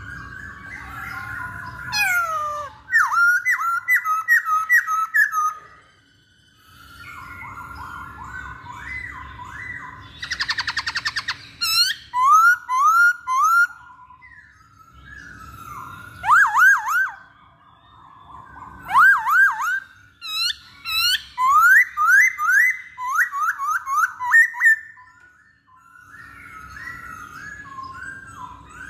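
Black-throated laughingthrush singing loud whistled phrases of quickly repeated notes that swoop up and down, in bursts with short pauses, with a brief harsh rattle about ten seconds in.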